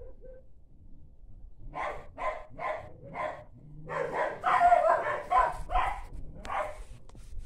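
Dog barking: a run of short barks starting about two seconds in, a few a second, coming faster in a dense cluster around the middle before a last bark.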